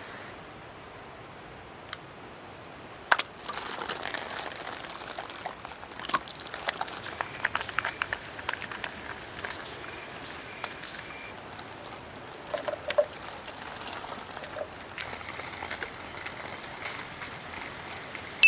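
Water pouring and trickling, with many small clicks and handling noises starting about three seconds in.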